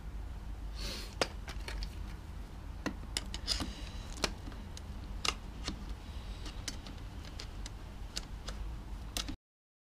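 Scattered small plastic and metal clicks and rattles as a throttle cable is worked into a motorcycle's handlebar throttle housing, over a low steady hum. The sound cuts off suddenly near the end.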